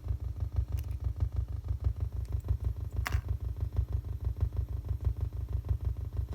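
Electrical interference from a Z80 CPU's binary-counting LED lines, leaking through a ground loop into an audio receiver and heard as a fast, stuttering low buzz beat. A single sharp click about three seconds in.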